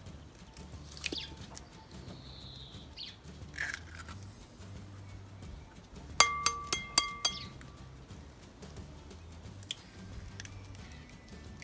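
An egg tapped against the rim of a glass mixing bowl to crack it: about five quick clinks a little past halfway, each leaving the glass ringing briefly. Birds chirp faintly.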